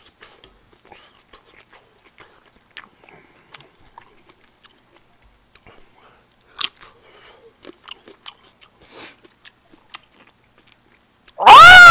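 A person chewing food close to the microphone, with soft, scattered mouth clicks and smacks. Near the end comes a sudden, very loud, high-pitched sound whose pitch rises and then falls, lasting about a second.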